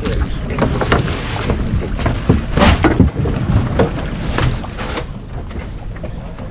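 Steady low rumble of wind and water around an open fishing boat, with scattered clicks and knocks on deck, and a louder rushing hiss about two and a half seconds in.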